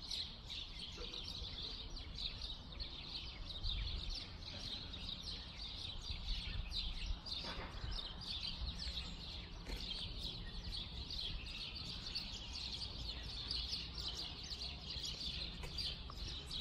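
A flock of small songbirds chirping and twittering together in a continuous, busy chorus, over a faint low background rumble.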